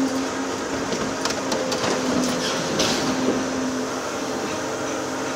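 Volvo EC750E high-reach demolition excavator working, its machinery running with a whine that breaks on and off, as its demolition shear crushes a brick wall. Sharp cracks and clatter of breaking, falling masonry about a second in and again near three seconds.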